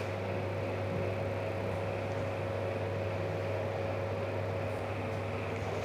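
Steady background room noise: a constant low hum with a faint steady whine and hiss, like a fan or appliance running.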